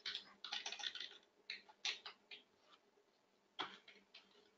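Faint computer keyboard typing: scattered short keystrokes in irregular clusters, with a pause in the middle, as a date range is typed into a filter field.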